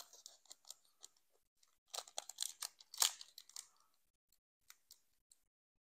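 Foil wrapper of a Pokémon booster pack crinkling and tearing as it is opened by hand: a cluster of crisp rustles and crackles, densest about two to three and a half seconds in, then a few faint crackles.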